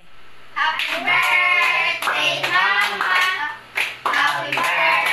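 Children singing together and clapping their hands along in a steady rhythm.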